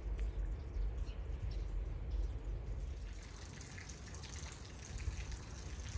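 Water dripping and trickling, with many small drips that come thicker in the second half, over a low steady rumble.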